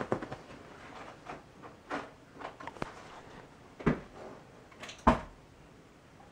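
Small dog rummaging with its head and paws in a blanket beside a nightstand: fabric rustling and scratching with several knocks, the two loudest about four and five seconds in.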